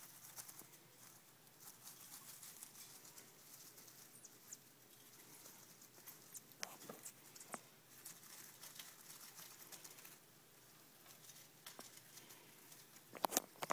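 Faint pattering and light scattered clicks of an agouti moving about, with a few sharper clicks near the end.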